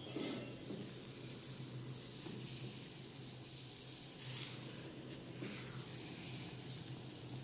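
Fingers rubbing and scratching through hair and scalp in a head massage, picked up close on a binaural microphone: soft hissing swishes every second or two.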